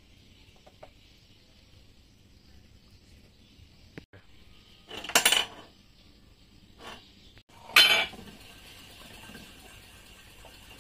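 Metal clinking as the crankshaft and connecting rods of a Yamaha 40 hp outboard engine are handled in the crankcase: a sharp click, then two loud clinks about two and a half seconds apart, with a lighter clink between them.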